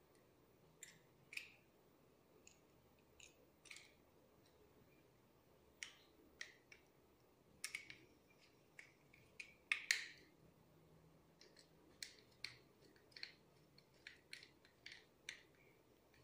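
Faint, irregular clicks and small plastic knocks from a white three-pin mains plug and its wires being handled while wire ends are fitted into the plug's terminals.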